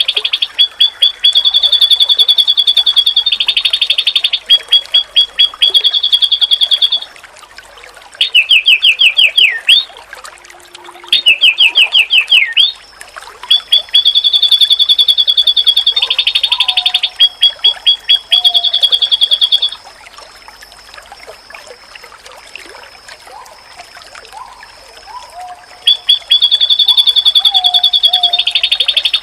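White-eye (pleci) singing: long runs of rapid, high repeated notes and fast trills, broken by short pauses, with a longer quieter gap in the second half. Fainter low chirping notes sound underneath.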